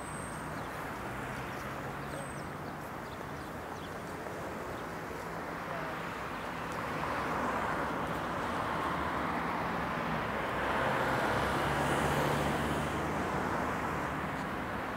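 City traffic noise: a steady hiss of passing cars with a low hum. It swells as vehicles go by about halfway through and again near the end.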